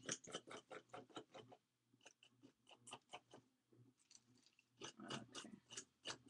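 Gritty sand texture paste being scraped off a stencil with a small tool: quick, rough scrapes in three runs with short pauses between them.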